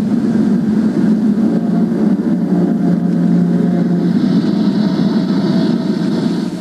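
Toy train running on its track: a steady, rough rumble of motor and wheels, with a faint higher hiss joining about four seconds in.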